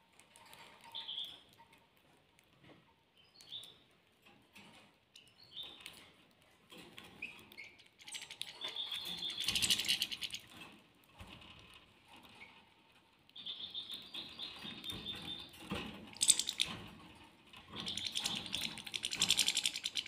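Caged European goldfinches and canaries calling: short separate chirps at first, then stretches of rapid twittering song about eight seconds in, again around fourteen seconds, and from near the end.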